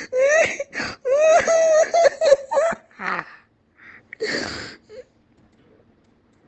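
A person's helpless laughing fit: high-pitched, wavering, wail-like laughter, then a couple of wheezing, gasping breaths about three and four seconds in.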